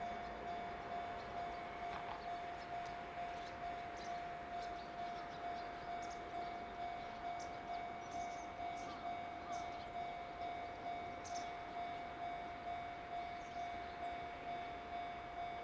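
Railway level-crossing alarm ringing as a train approaches: one steady bell-like tone pulsing evenly, about one and a half times a second.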